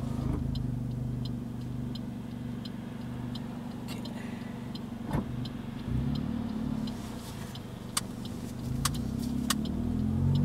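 Car engine heard from inside the cabin, running slowly with a steady hum, with a regular ticking of about three clicks a second throughout. The engine note rises briefly about six seconds in and again near the end as the car speeds up.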